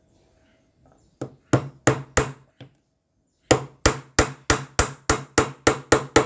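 Small hammer driving a little nail through a thin strip of wood into a plywood base: four taps, a short pause, then a steady run of about three blows a second.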